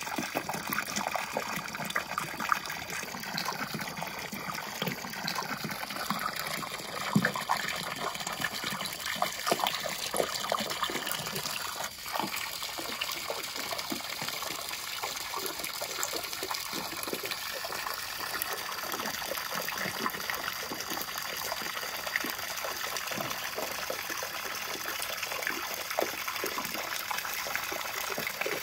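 A hose jet of water splashing steadily into a tarp-lined pool as it fills.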